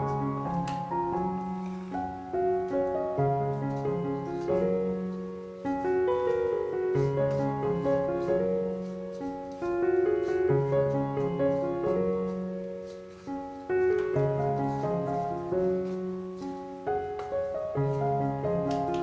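Background piano music: a gentle melody over a repeating low bass figure.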